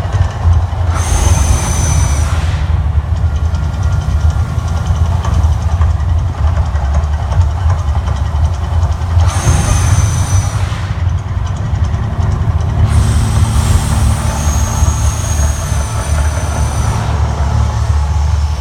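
Mirage volcano attraction's effects: a loud, steady deep rumble, broken three times by bursts of hissing, each with a thin high whistle that falls slightly, about a second in, near ten seconds, and from about thirteen to seventeen seconds.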